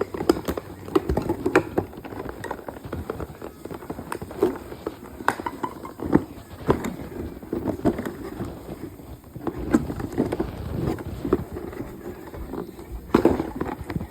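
Plastic toy packaging and figures being handled during an unboxing: irregular clicks, taps and rustling as the toys are pulled from their plastic tray.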